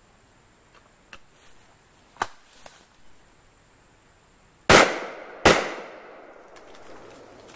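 Stoeger Coach Gun, a 12-gauge side-by-side double-barrel shotgun, being handled with a few clicks and a sharp snap as it is readied. About two seconds later both barrels are fired, two shots under a second apart, each trailing off in a long echo.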